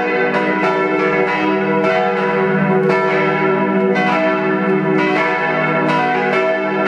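A partial peal of four swinging church bells tuned e', f-sharp', g-sharp' and b' (three cast by Czudnochowsky in 1950, one by Kortler in 1907), ringing together. The strokes come several times a second in an irregular, overlapping pattern, over a dense, steady hum of hanging tones.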